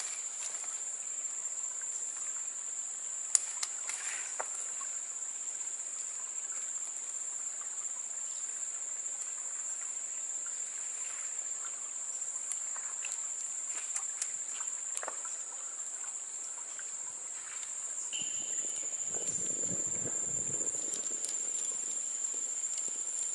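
Insects droning steadily at a high pitch in the open woods, with scattered small clicks and snaps from twigs and a small wood fire; a low rumble swells for a few seconds about eighteen seconds in.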